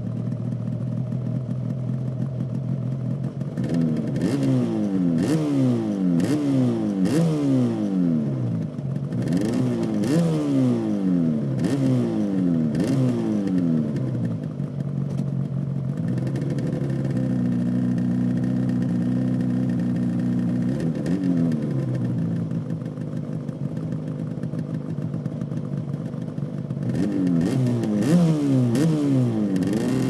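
Stock 1984 Yamaha RD500's 499 cc liquid-cooled two-stroke V4 idling, then blipped a dozen or so times, the revs falling back after each blip. Around the middle it is held briefly at a steady raised speed, drops back to idle, and is revved again near the end as the bike moves off.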